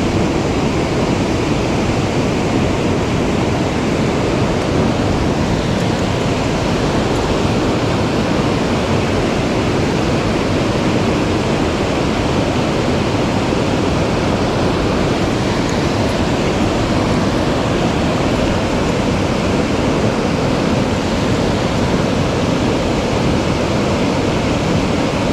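Steady, loud rush of mountain-stream water.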